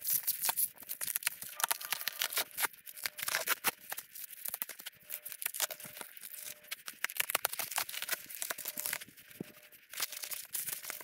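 Plastic stretch wrap being sliced with a box cutter and ripped off a wooden speaker cabinet: a dense run of crinkling and tearing crackles that thins out near the end.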